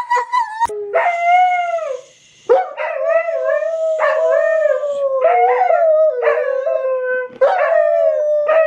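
A dog howling loudly: one drawn-out howl that falls at its end, a short pause, then a run of wavering howls, each picking up as the last fades.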